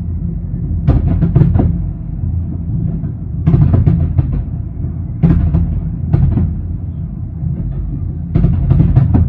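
Aerial fireworks bursting in clusters of booms and sharp cracks, a new cluster every two to three seconds, over a continuous low rumble.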